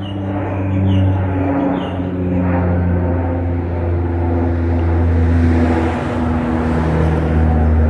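Saab 340B twin turboprop climbing out after takeoff: a steady low propeller drone with several humming tones that drop slightly in pitch about six seconds in.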